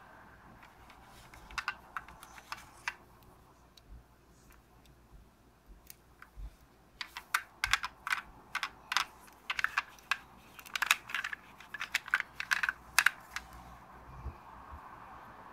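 Small clicks and taps of a die-cast metal Subaru model car being handled and turned over, its door opened: a few scattered clicks at first, then a dense run of quick clicks in the second half.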